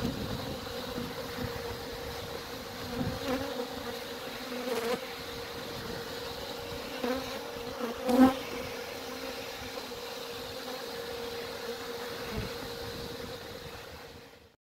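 A swarm of honeybees buzzing close by over a steady hum, with individual bees flying past the microphone in several short, louder buzzes. The sound fades out near the end.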